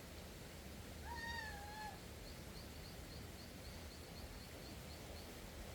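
An animal calls once, a single even-pitched call just under a second long, about a second in. Short high chirps follow, repeating three or four times a second until near the end.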